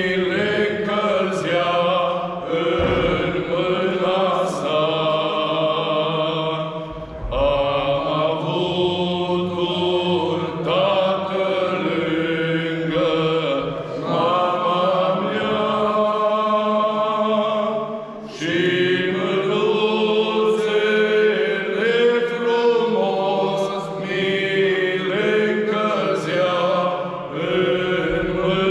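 A small group of voices singing a slow, chant-like song unaccompanied, with long held notes and short breaks between phrases about 7 and 18 seconds in.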